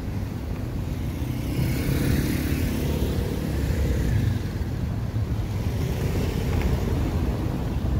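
Wheelchair rolling and jolting over a cobblestone street, a steady rattling rumble from the rough stones, with a motor scooter passing close at the start.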